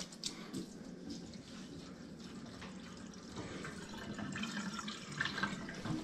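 Water poured from a cup, trickling and splashing into a stainless steel sink and down the drain into a newly installed garbage disposal as a leak test. Faint, with a few small ticks, a little louder in the second half.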